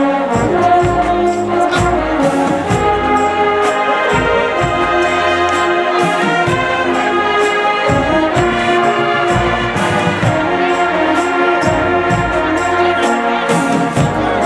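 A marching band's full brass section (sousaphones, trombones, mellophones and trumpets) playing loudly in unison, with drums hitting a steady beat underneath.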